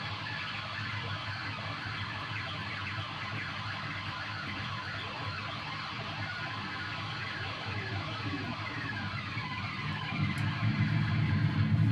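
Noise made with guitar effects pedals: many overlapping siren-like swooping pitch glides over a low droning hum, which swells louder about ten seconds in.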